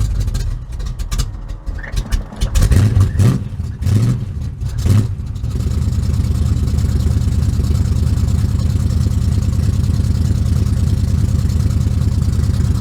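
Carbureted car engine, just started cold, running unevenly with irregular throttle blips and surges for the first five seconds or so, then settling into a steady run. The throttle is being worked to keep it from stalling until it warms up.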